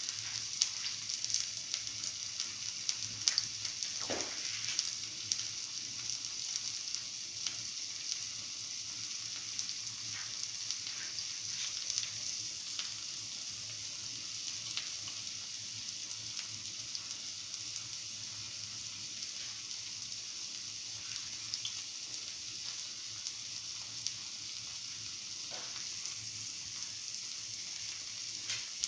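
Okra and chickpea-flour fritters sizzling in shallow oil in the cups of a cavity pan: a steady hiss with frequent small crackles.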